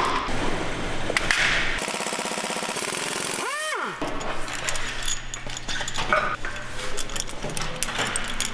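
Metal clicks and clatter of tools and bolts as the cylinder head of a BMW X6 M's V8 is unbolted. About two seconds in, a rapid machine rattle runs for about a second and a half, and right after it comes a short tone that rises and falls in pitch.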